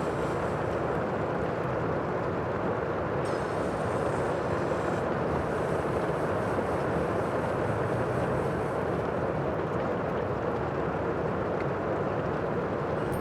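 Sea ambience: a steady rushing of water and wind, even in loudness, with no single breaking waves standing out.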